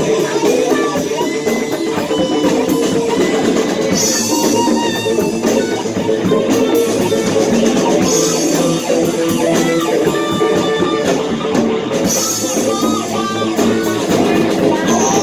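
Live band playing rock music: electric guitars over a drum kit and congas.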